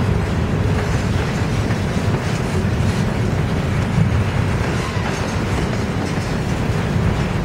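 Train rolling past: a steady rumble of rail cars with faint clicks of wheels over rail joints.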